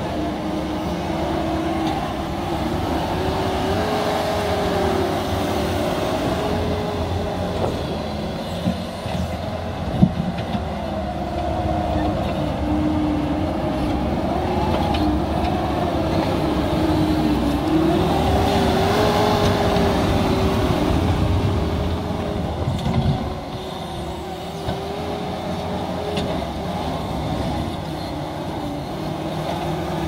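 Case TV450 compact track loader running under load as it pushes and grades dirt, its engine and drive whine rising and falling in pitch as the load changes. There is one sharp knock about ten seconds in.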